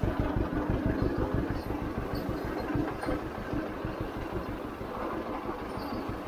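1951 John Deere Model A's two-cylinder engine running steadily as the tractor is driven, a fast, even beat of exhaust pulses.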